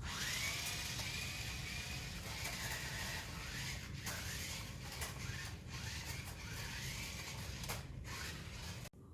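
Small electric motors of a toy stunt RC car whirring as it drives, with a faint whine that rises and falls as it speeds up and slows. The sound cuts off sharply near the end.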